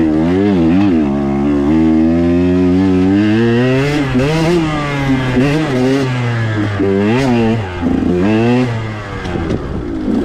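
KTM 125 XC two-stroke dirt bike engine revving hard while being ridden, its pitch rising and falling again and again as the throttle is worked, easing off a little near the end.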